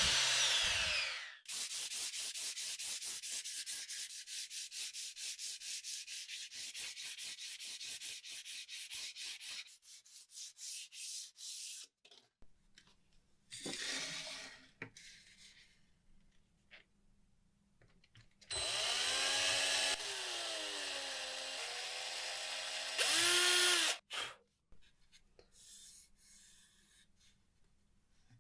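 Sandpaper rubbed by hand in quick back-and-forth strokes for about ten seconds. A small power tool then whines briefly, and later runs for about five seconds with its pitch wavering up and down as it works.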